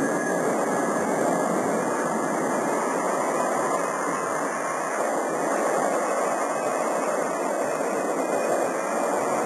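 Boeing 757-200 airliner's jet engines on the takeoff roll: a steady rushing noise with no clear whine, heard through a camcorder microphone.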